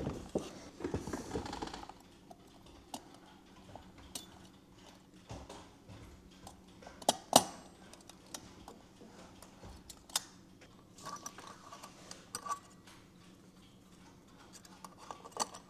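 Antique clock movement being fitted together by hand: scattered small metallic clicks and light taps as brass wheels and arbors are set into the brass plates, with a couple of sharper clicks about seven and ten seconds in.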